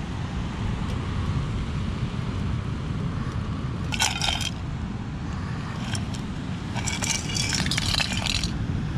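Small boiled periwinkle and mussel shells clattering against a thin aluminium camping saucepan and its metal lid as they are tipped out, in two bursts: a short clatter about four seconds in and a longer rattle from about seven to eight and a half seconds. A steady low rumble runs underneath.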